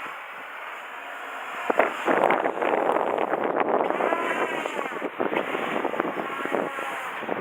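Strong wind buffeting the microphone, growing louder about two seconds in. Under it, the whine of a small electric RC aircraft's motors rises and falls in pitch as the throttle changes.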